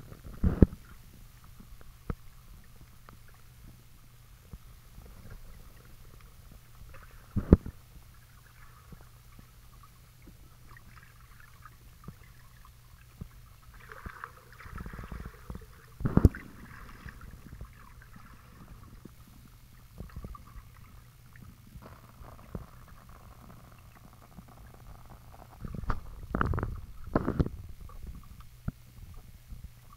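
Muffled underwater sound in a swimming pool: a steady low hum with water movement and occasional sharp, dull knocks. The knocks come about half a second in, then twice more well apart, with a cluster near the end.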